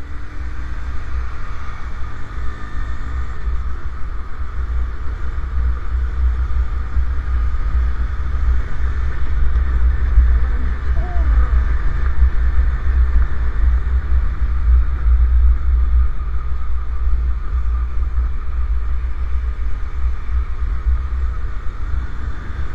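Wind buffeting the microphone of a camera on a moving motorcycle, a heavy steady low rumble, with the motorcycle's engine and road noise running underneath.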